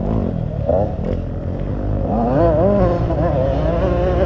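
Motocross bike engines on the track, their pitch wavering up and down with the throttle over a steady low rumble.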